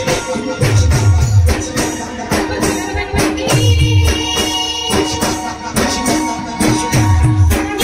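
Live Adivasi band music: held melodic notes over a busy percussion beat, with a cluster of deep falling bass notes about every three seconds.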